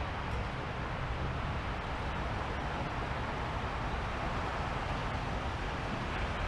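Urban road traffic noise: a steady wash of vehicle sound with a low rumble underneath and no single event standing out.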